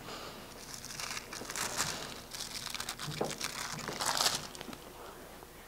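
Faint crinkling and rustling of something being handled, in a few short spells rather than a steady sound, the clearest about four seconds in.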